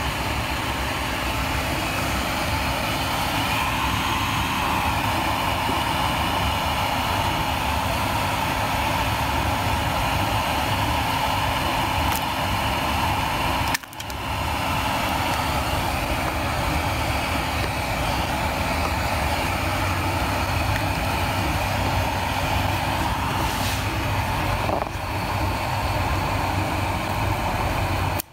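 A steady mechanical hum and rumble, broken by a brief drop about fourteen seconds in.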